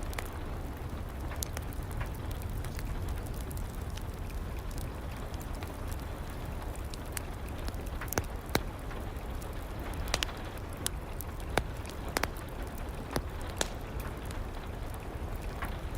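Steady rain with a low rumble, over a crackling wood fire in a fireplace. Sharp pops are scattered throughout, with several louder ones a little past halfway.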